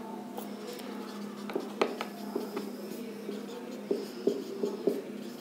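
Marker pen writing on a whiteboard: short scratchy strokes and light taps as letters are formed, over a steady low hum.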